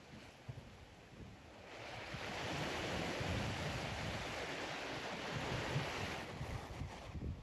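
Ocean surf: a wave rushing in, swelling about two seconds in and fading away near the end, with wind rumbling on the microphone.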